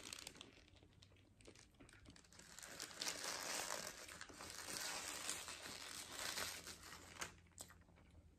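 Paper burger wrapper crinkling as it is handled and peeled back, faint, with a few scattered clicks first and a denser stretch of crinkling in the middle few seconds.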